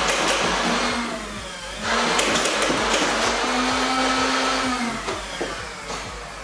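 Motorized foam-ball Nerf blaster running its flywheels and firing rapidly: a dense mechanical whir over a fast run of thumps, about five a second, with the motor whine falling away twice as it spins down.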